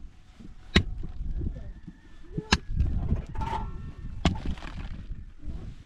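Three sharp, heavy blows at an even pace, about one every two seconds, over a low rumbling background.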